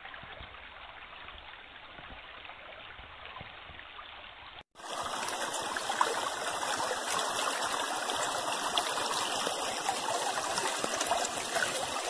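Shallow stream trickling over pebbles and stones. About a third of the way in the sound drops out for an instant and comes back louder and brighter.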